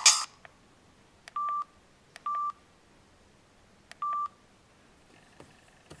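Samsung X680 flip phone: a ringtone cuts off right at the start, then three short keypad beeps at one pitch, each just after the faint click of a key press.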